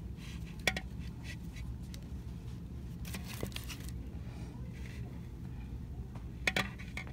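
A few light clicks and clinks, with a brief rustle about three seconds in, as plastic-packaged party favours and a tiara are handled on a display rack. A steady low hum sits underneath.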